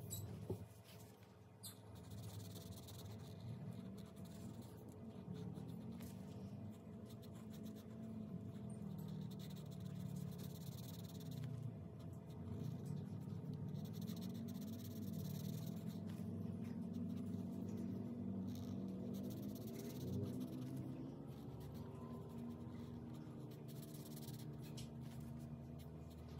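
Felt-tip permanent marker writing on heavy cardstock, in short scratchy strokes that come and go. A low wavering tone runs underneath.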